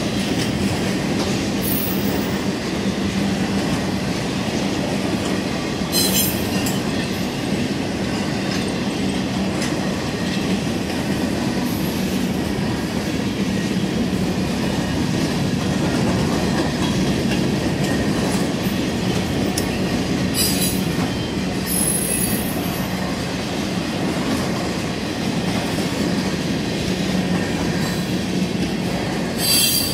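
Mixed freight train's cars rolling past, a steady rumble and clatter of steel wheels on rail. Short high wheel squeals come about 6 seconds in, twice around 21–22 seconds, and again near the end.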